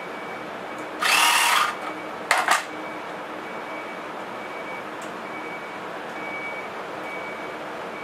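A 12-volt air compressor runs steadily while inflating a motorcycle tire. About a second in, a loud hiss lasts over half a second, followed by two short hisses a moment later.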